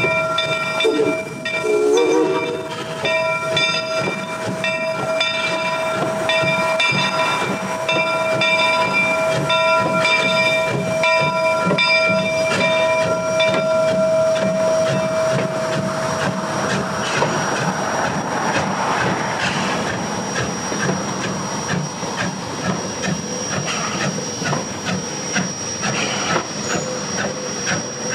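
Steam locomotive No. 70 moving slowly, with ringing tones sounding over steam hiss for about the first half. After that the tones fade and the rest is steam hiss and the quick clicking of wheels on rail as the train passes.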